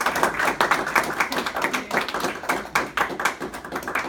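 Small audience clapping in a small room, tailing off near the end.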